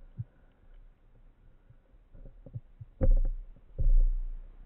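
Muffled underwater noise picked up through a camera housing on a speargun: scattered soft knocks and clicks, then two louder low rumbles about three and four seconds in.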